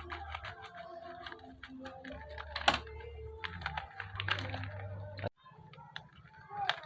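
Irregular sharp clicks and light rattling from hands handling and opening the packaging of a small electronics board.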